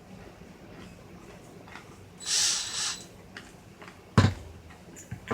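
Hands working on a car radio during reassembly: light clicks, a short hissing rustle about two seconds in, then a single sharp knock a little after four seconds.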